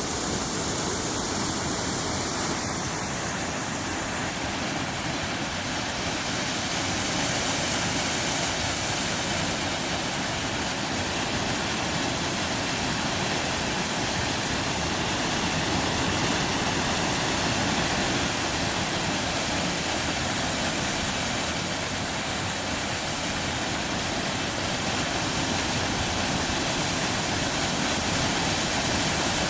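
Steady rushing of water flowing through open patches in the ice of a mostly frozen waterfall.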